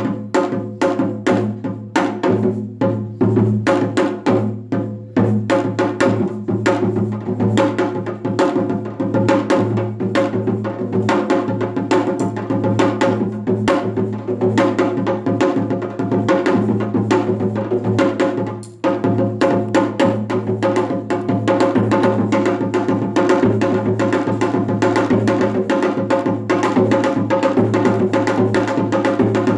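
Janggu (Korean hourglass drum) played solo in seoljanggu style: rapid, continuous strokes that crowd closer together as the rhythm builds, with a momentary break about two-thirds of the way through.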